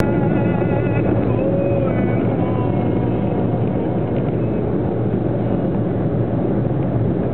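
Steady road noise heard inside a car's cabin at motorway speed: a low, even rumble of tyres and engine.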